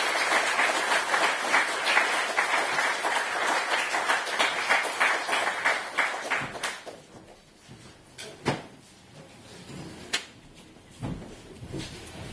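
Audience applauding, a dense patter of many hands clapping that stops about six and a half seconds in. After that only a few scattered knocks are heard.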